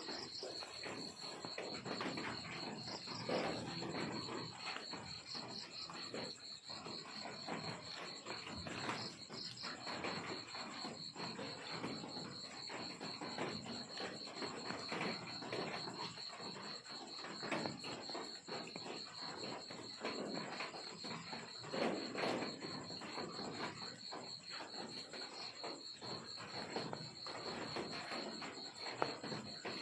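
Crickets chirping in a steady high trill, over scattered rustles and clicks.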